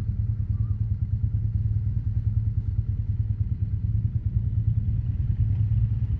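Motorcycle engine running steadily with an even, low pulsing note, no revving up or down.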